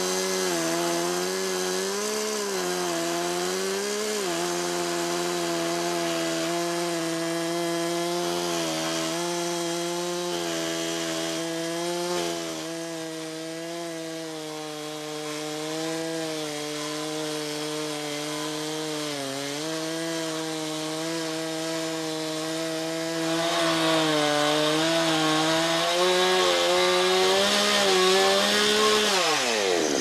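Chainsaw on a Logosol Woodworker's Mill ripping lengthwise through a log, running steadily under load with small dips in pitch, louder over the last several seconds. Right at the end the engine note begins to fall as the throttle is let off.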